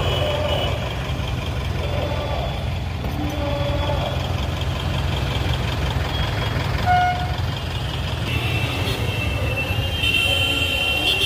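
Busy city road traffic heard from inside a car: a steady low rumble of engines and tyres, with vehicle horns tooting, one short honk about seven seconds in and a higher, longer horn near the end.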